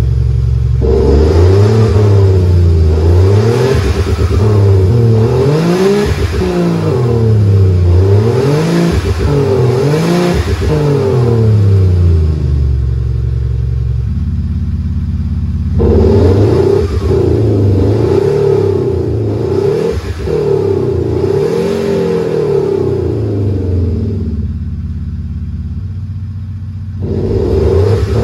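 Porsche 981 Boxster flat-six exhaust sound played by a JSR XHAUST active exhaust sound system fitted to a Range Rover. It revs up and down again and again, with a steadier stretch about halfway through. Near the end it switches to the louder Mercedes C63 AMG V8 sound.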